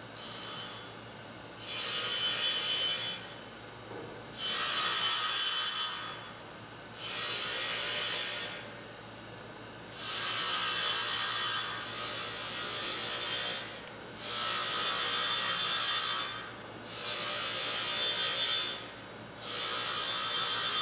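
A diamond dresser truing the spinning grinding wheel of an SGS-816 surface grinder, heard as a high hissing grind that comes in about eight passes, each a second and a half to two seconds long, with short pauses between. At first the sound shows the diamond touching only the high spot of the eccentric new wheel. By the end it sounds a lot better, because the diamond is in contact with the whole of the wheel.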